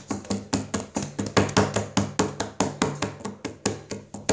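Rapid, fairly regular knocks or taps close to the microphone, about five a second.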